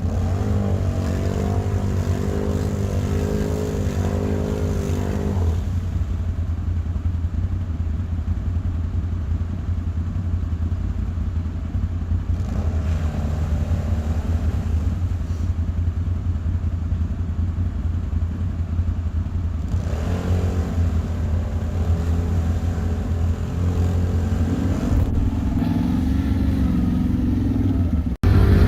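Quad bike (ATV) engine running with a steady low rumble, the revs rising and falling now and then.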